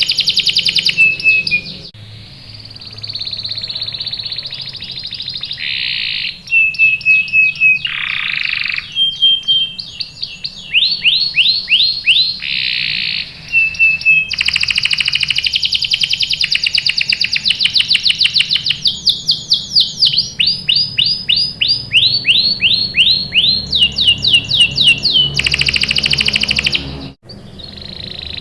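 Domestic canary singing continuously: long, fast trills of repeated sweeping notes alternating with steady rolling phrases, with a sudden break near the end.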